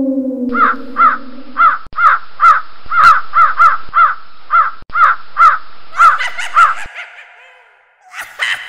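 Crows cawing over and over, about two caws a second, the calls overlapping at times and fading out near the end. Under the first caws a low, falling tone slides down and stops about two seconds in.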